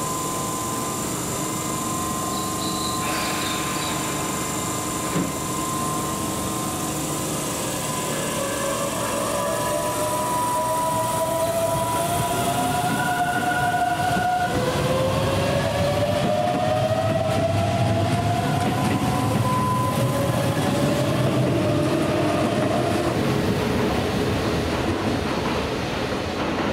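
Keihan electric train pulling away, its traction motors giving a whine that rises in pitch, drops back about halfway through and climbs again, over the rumble of wheels on rail.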